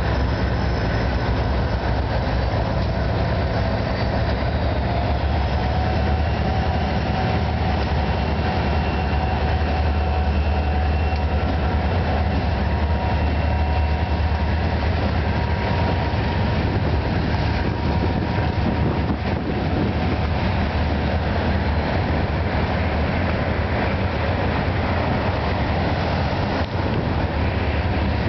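CSX freight train passing close by: its diesel locomotives run with a heavy low drone and faint steady whining tones, then from about halfway the tank cars and hoppers follow, their wheels clicking over the rail joints.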